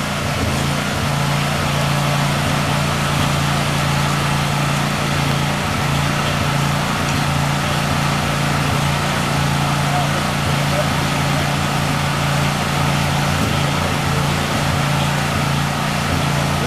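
Small gasoline engine of a pressure washer running steadily at a constant speed, with the hiss of the spray over it.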